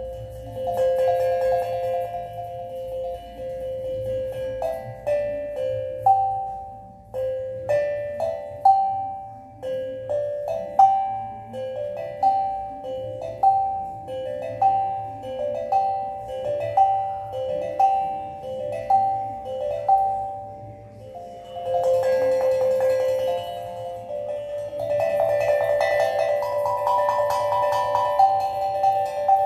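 Steel tongue drum being played: single struck metal notes ring out and fade, alternating between two pitches at about one note a second through the middle, with several notes ringing together near the end.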